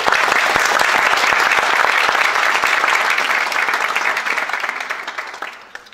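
Audience applauding: a dense clatter of many hands clapping that dies away near the end.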